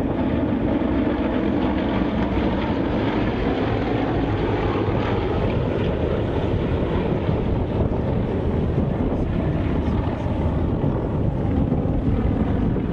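Steady aircraft engine noise at a flying display, mixed with wind buffeting the microphone.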